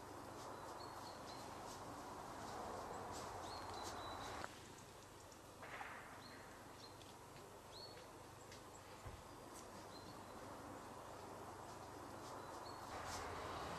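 Faint outdoor nature ambience: a steady hiss with short, high bird chirps and a few clicks scattered through it. The hiss drops suddenly about four seconds in, then slowly builds again.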